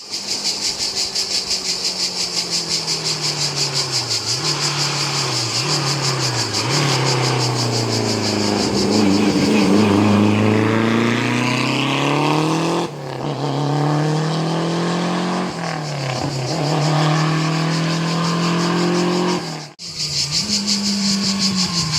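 Historic racing car engines accelerating and shifting up and down through the gears, their pitch rising and falling repeatedly, in several short takes. A steady high buzz runs behind the engines in the first and last takes.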